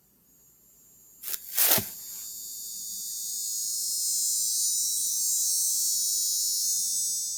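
Cicadas droning: a steady high-pitched buzz that swells in about two seconds in, holds, and dies away near the end. Shortly before it, two brief scratchy sounds are louder than the buzz.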